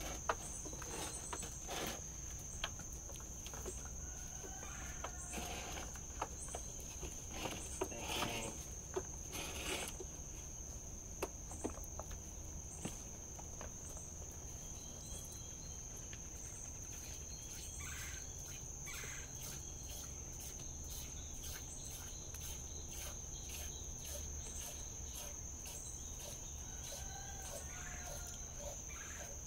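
Steady high-pitched drone of insects in summer vegetation. Light clicks and taps are scattered through the first half, and a few faint short calls sound, the chirps of small birds or chickens.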